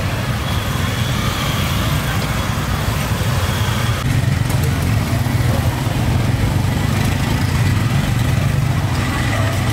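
Steady low rumble of street-market ambience beside a food stall's gas burners and motorbike traffic, with a few faint light clicks about four to five seconds in.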